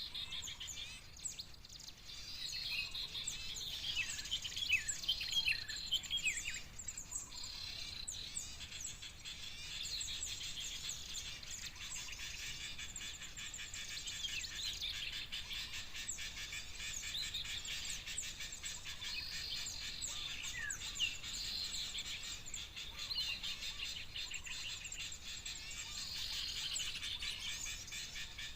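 Busy chatter of many small birds: quick high chirps and short downward-sweeping notes overlapping without pause. This is the bird-trapping lure call, a recording of noisy small birds mixed with bulbul calls, played to draw birds such as the common iora to the lime sticks.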